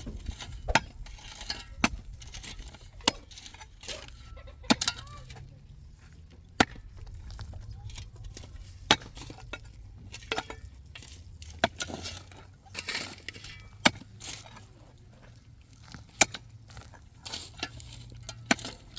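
A series of sharp clinking knocks at uneven intervals, about one every one to two seconds, over a low steady rumble.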